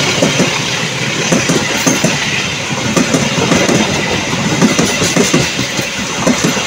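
Passenger train coaches passing close at speed: a steady loud rush of rolling noise with the steel wheels clattering rapidly on the rails.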